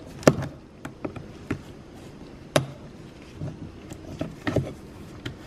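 Plastic trim removal tool prying at the window switch in a BMW E46 rear door panel: a scattering of sharp plastic clicks and taps, the two loudest about a quarter second in and about two and a half seconds in.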